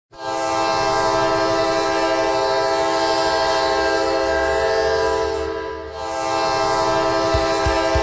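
San Diego Gulls arena goal horn blasting a sustained chord of several steady tones. It holds for about five and a half seconds, dips briefly, then sounds again. A thumping drum beat from the goal song comes in near the end.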